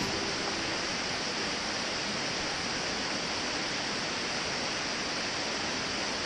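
Steady rush of a mountain stream's water flowing over rocks, an even hiss and rumble without change.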